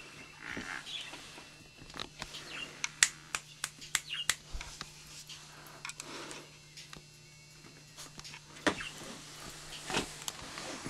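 Irregular clicks and knocks of footsteps on a manual treadmill, with a cluster of quick sharp clicks in the middle and two louder single knocks near the end, over a faint steady low hum.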